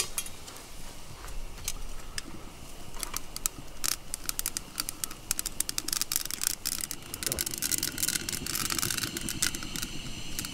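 Irregular crackling and snapping of small twigs being fed into and burning in a Kelly Kettle's fire base, the clicks coming thicker in the second half. A steady rushing sound of fire or burner sets in about seven seconds in.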